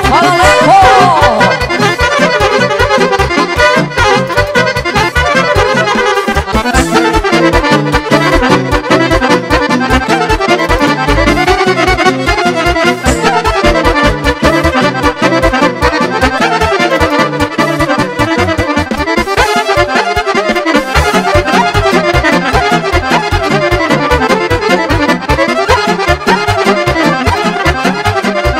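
Live Balkan wedding band playing an instrumental kolo dance tune, led by accordion over a steady driving beat.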